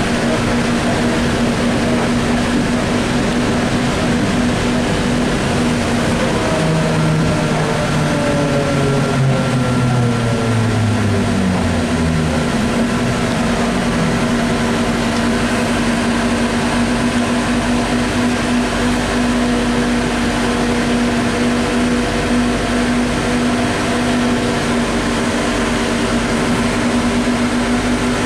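ZiU-683B articulated trolleybus running, with a steady electrical hum and road noise throughout. From about six to thirteen seconds in, a whine falls in pitch as the traction motor slows.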